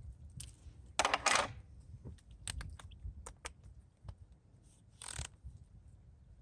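Small parts being handled: light clicks and taps, with a short rattling scrape about a second in and another shorter one about five seconds in.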